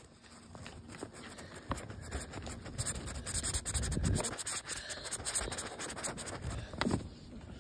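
Pink coloured pencil scribbling quickly back and forth on paper to colour in a drawn mouth: a dense run of fine, scratchy strokes, busiest in the middle.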